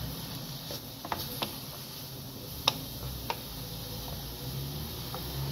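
A spatula knocking and scraping against a frying pan while chopped cabbage and carrots are stirred: a handful of sharp, irregular clicks, the loudest about halfway through, over a low steady hum.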